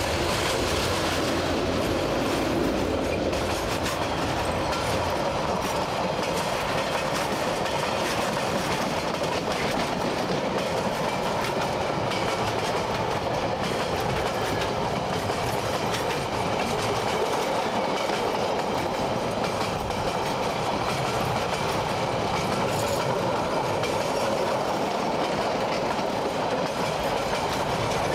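Tasrail freight train's wagons, coal hoppers followed by empty log wagons, rolling steadily past, their steel wheels clacking over the rail joints.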